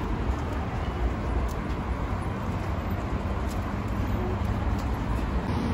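Busy city street ambience: a steady rumble of road traffic.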